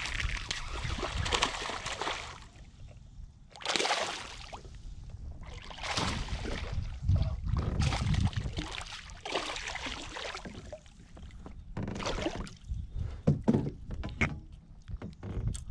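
Irregular bursts of water splashing and sloshing around a small fishing boat, with a few sharp knocks near the end.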